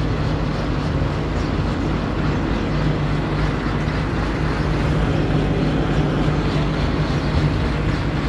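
A vehicle engine running steadily with a low, even hum, likely the engine of the vehicle loading the scissor lift onto the truck bed.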